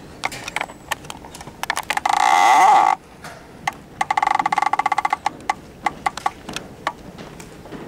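Hard-soled footsteps knocking on a wooden stage floor. They are broken by a loud squealing scrape about two seconds in and a fast juddering scrape about four seconds in, as something is dragged across the boards.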